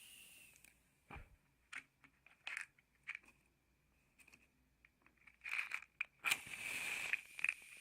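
Matches being handled, with small clicks and scratches, then a match struck hard about six seconds in and flaring with a brief hiss.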